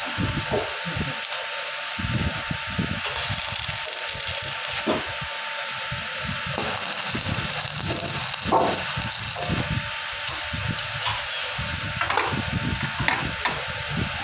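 Metal workshop noise: irregular knocks and clanks, with two bursts of harsh crackling hiss, one about a second and a half long and a longer one of about three seconds, from arc welding.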